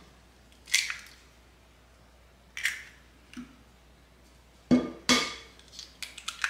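Eggs being cracked one after another into a ceramic mixing bowl: separate sharp taps and clicks of eggshell, with the loudest pair about five seconds in and a few small ticks after.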